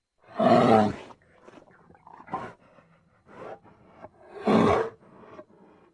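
Brown bear roaring: two loud roars about four seconds apart, with shorter, quieter calls between them. The first roar begins abruptly after a brief silence.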